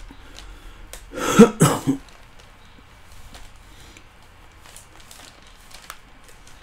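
A person coughing, a quick run of two or three coughs about a second in, followed by quiet room tone.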